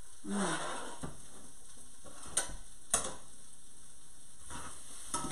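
Food sizzling as it fries in a pan on a cooktop: a steady hiss, with two sharp clicks about two and a half and three seconds in.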